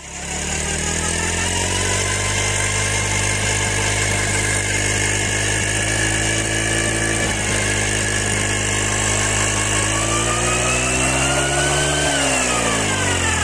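Motorcycle engine running on its stand with the rear wheel turning a home-made fan blade. The pitch climbs slowly and then falls away from about twelve seconds in.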